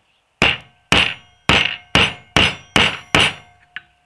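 A rubber mallet strikes a 34 mm socket seven times, about two blows a second, each blow with a short metallic ring, then a faint last tap near the end. The blows drive a new fork seal into the fork slider of a Kawasaki LTD 440, where it sits as a tight fit.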